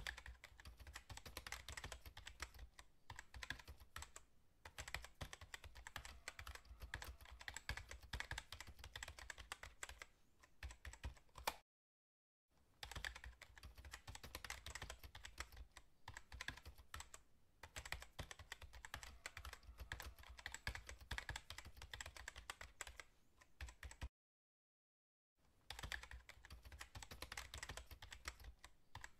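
Keyboard typing sound effect: rapid, continuous key clicks that go with on-screen text being typed out, stopping dead twice for about a second.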